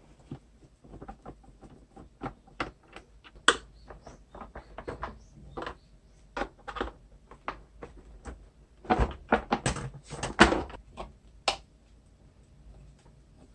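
Irregular clicks, taps and knocks of plastic and metal parts being handled as a vacuum cleaner is taken apart to reach its motor's carbon brushes, with a busier, louder run of knocks near the middle.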